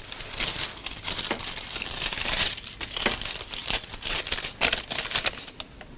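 Paper crinkling and rustling in many short crackles for about five seconds: a telegram being opened and unfolded.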